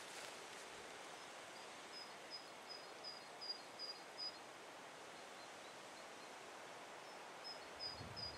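Faint outdoor hiss with a small songbird singing runs of short, high, evenly repeated notes, about three a second, twice.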